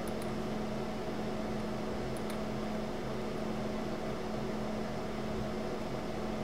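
Steady room hum and hiss with a few level droning tones, like a ventilation fan or electrical hum. Two faint mouse clicks come at the start and about two seconds in.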